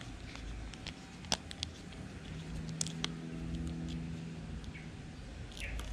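Scattered small clicks and taps of a screwdriver and plastic and metal reel parts as a Shimano Sienna 2500FE spinning reel is taken apart by hand. A low steady hum comes in about two seconds in and stops near five seconds.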